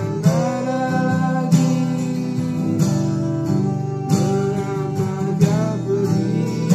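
Music: a guitar-led track with a melody line that slides up and down in pitch over a steady accented beat.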